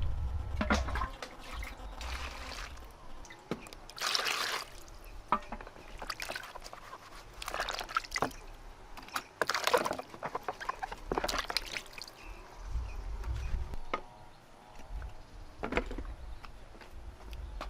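Water sloshing and trickling in irregular splashes.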